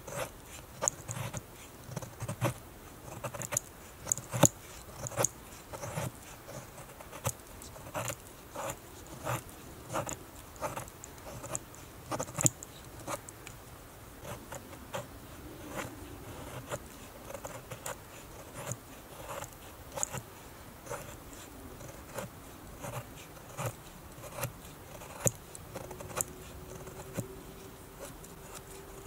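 A Survival Lilly APO-1 fixed-blade bushcraft knife shaving curls down a wooden stick to make a feather stick: short, sharp scraping strokes, roughly one a second, each with a small knock of the blade.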